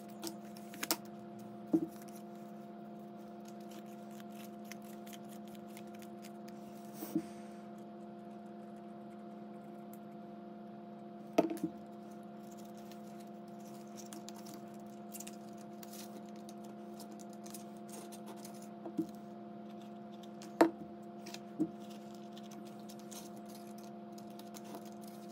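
Cardstock being folded and pressed by hand: scattered light taps and crinkles of paper, seven or so sharp clicks spread through, over a steady hum.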